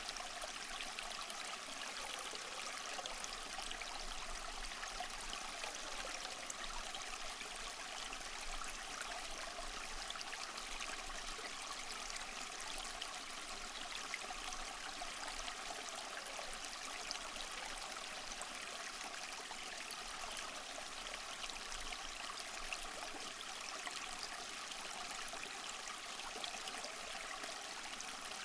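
Water churning steadily in a bucket as a portable handheld bucket washing machine agitates clothes.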